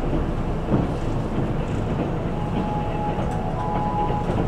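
Cabin noise of a Kintetsu 12200 series limited express running: a steady rumble of wheels on rail. A few steady high tones join in over the last two seconds.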